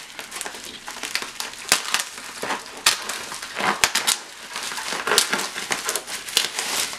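Bubble wrap being pulled off and crumpled by hand: plastic crinkling with irregular sharp crackles and pops throughout.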